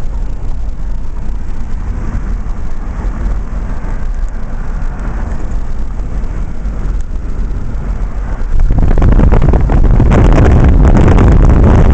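Car driving, heard from inside the cabin as a steady low road rumble. About two-thirds of the way in it jumps suddenly to a much louder rushing of wind and road noise.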